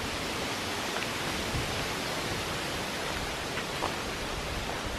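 A steady, even rushing noise with a few faint ticks.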